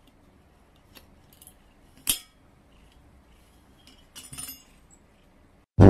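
Small hard clinks and taps of a green cylindrical canister being bitten and pawed by a cat: faint scattered ticks, one sharp clink about two seconds in, and a short rattle of clicks around four seconds in.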